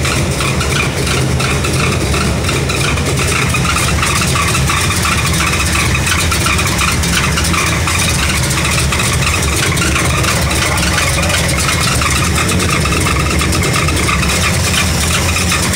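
Car engine with headers running steadily and loud, with a noise that the men suspect comes from inside the engine, perhaps a bad lifter, rather than the headers hitting the frame.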